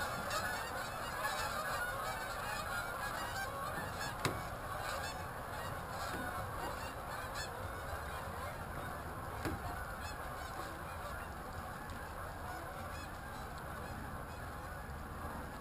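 A large flock of geese honking, many calls overlapping into a continuous clamour that slowly fades. Two sharp knocks stand out, about four and nine seconds in.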